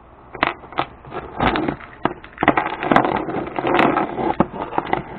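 A keychain of keys and small metal tools being handled, with an irregular run of clicks, clinks and rattles.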